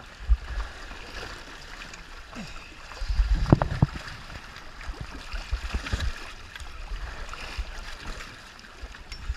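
Seawater sloshing and splashing in a surface shark cage, heard close at the waterline, with a louder stretch of splashing and low buffeting about three seconds in.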